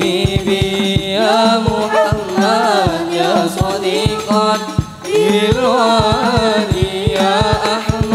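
Rebana ensemble performing a sholawat song: hand-struck frame drums beat a quick, steady rhythm under a sung melody of long, wavering melismatic notes, with a brief dip in loudness about five seconds in.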